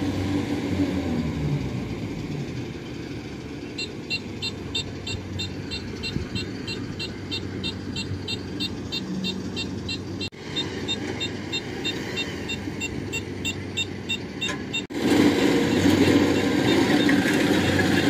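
Kubota DC-70 Plus combine harvesters' diesel engines running steadily under load in muddy, flooded paddy, with an engine note sliding down early on. A high, rapid beeping repeats several times a second from about four seconds in until near the end, and the engine sound turns louder after a sudden break in the last few seconds.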